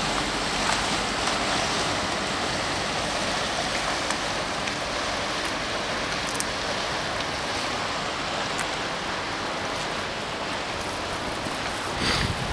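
Steady wash of canal water and wind, with a short louder burst near the end.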